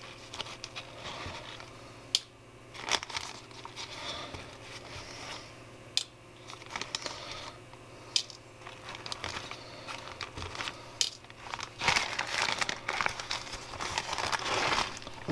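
Plastic mailer bag crinkling and rustling as it is handled, with a few sharp clicks every couple of seconds from tiny screws dropped into a metal jar lid. The crinkling gets louder and denser near the end.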